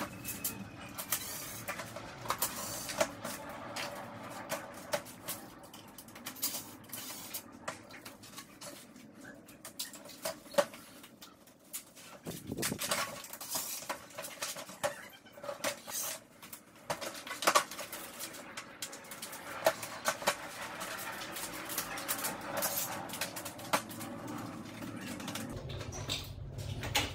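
Scattered clicks, taps and light clatter as a glazed window sash is handled and its frame taken apart by hand, with metal frame parts and glass knocking on a cardboard-covered table.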